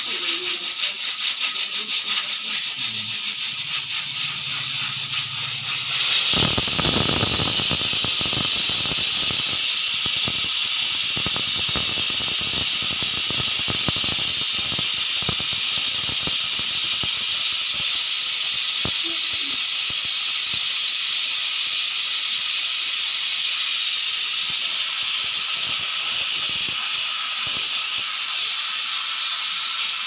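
Aluminium pressure cooker on a gas stove venting steam through its weight valve in a continuous loud hissing whistle with a steady high tone. About six seconds in it grows rougher and sputters with irregular crackling.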